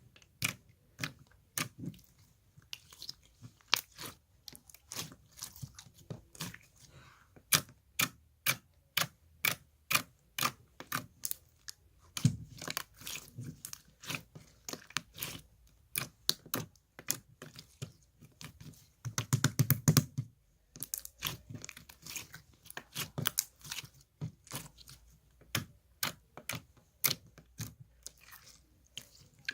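Slime being squeezed and poked by hand, giving sharp clicks and pops about two or three a second, with a denser run of crackling about two-thirds of the way through.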